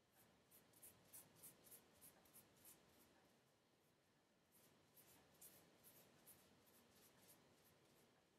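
Faint rustling of fingers scrunching and working through wet coily hair, quick strokes about three or four a second, in two runs with a pause between them.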